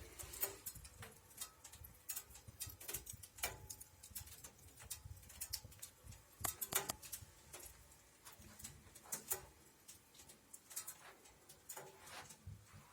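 Wood fire burning in a wood-burning cookstove, crackling with irregular sharp pops and snaps.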